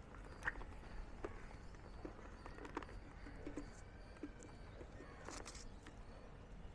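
Light handling noises from a motorcycle helmet being moved about: scattered soft clicks and taps, with a brief rustle a little after five seconds in.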